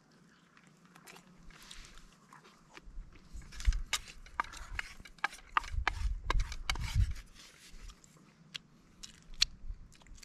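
A person chewing a mouthful of cooked trout close to the microphone, with many small sharp mouth clicks and smacks. A low rumble of handling or movement runs through the middle.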